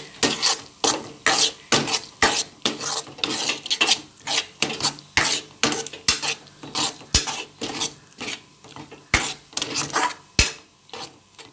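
Spoon stirring cooked beetroot mixed with curd, scraping and clinking against the vessel about twice a second, with a few sharper knocks.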